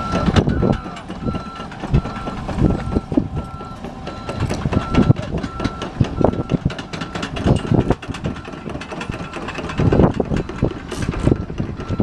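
Kato mini excavator's warning alarm beeping steadily, a bit more than one beep a second, over irregular knocks and clanks from the site.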